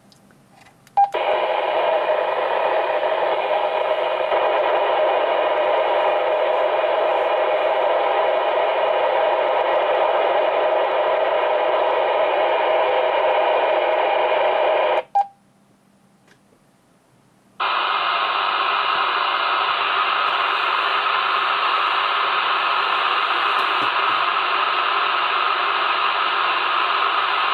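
Radio receiver hiss with the squelch open: a steady band of static that comes on with a click about a second in, cuts off with a click a little past the middle, then returns after a couple of seconds' pause.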